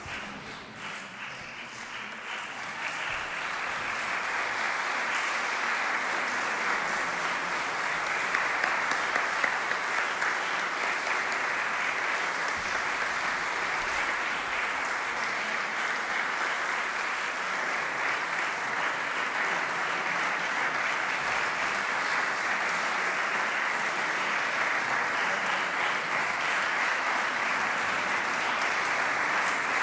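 Audience applauding, growing louder over the first few seconds and then holding steady.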